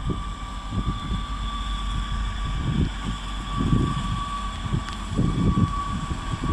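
Northern diesel multiple unit pulling away from the platform, its engine and transmission giving a steady high whine. Irregular gusts of wind buffet the microphone and are the loudest part.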